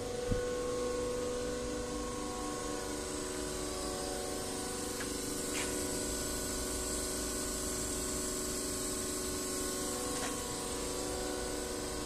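Excavator-mounted hydraulic rock drill rig running steadily: an even machine hum made of several steady tones with a faint rapid pulsing, and a few faint clicks.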